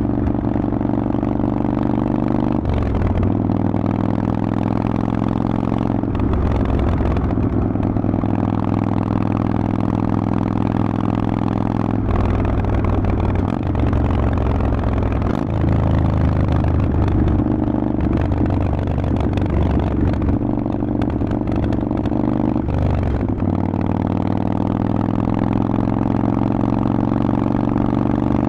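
Harley-Davidson Forty-Eight's air-cooled V-twin, breathing through a Vance & Hines exhaust, running at a steady loud level. Its engine speed steps up and down to new steady pitches about half a dozen times.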